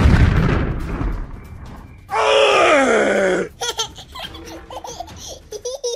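Cartoon sound effects: a loud burst hits at the start and fades over about a second and a half. About two seconds in comes a long creature cry that falls steadily in pitch, followed by short, wavering squeaky voice sounds.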